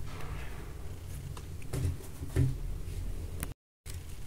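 Faint handling noises as a sneaker is lifted out of its tissue-lined cardboard shoebox: a few light knocks and rustles over low room hum. The sound cuts out completely for a moment near the end.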